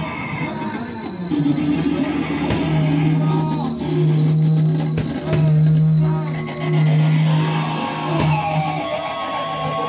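Rock band playing loud and live: distorted guitar and bass hold long low notes over drums, with a steady high whine above them. A cymbal crashes twice, near the start and again near the end.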